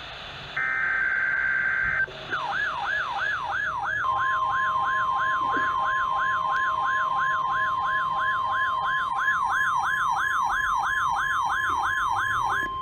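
NOAA Weather Radio alert signalling: a short burst of screechy digital alert-header data, then a warbling alarm that sweeps up and down about two and a half times a second. About four seconds in it is joined by the steady 1050 Hz weather radio warning tone, and both cut off just before the end.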